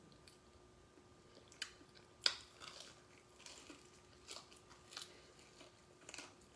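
A person chewing stuffed cheesy bread: a scatter of faint crunches and mouth clicks, the sharpest a little over two seconds in.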